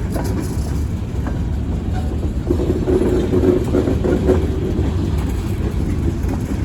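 Freight train rolling slowly past with a steady low rumble. It grows a little louder from about two and a half seconds in.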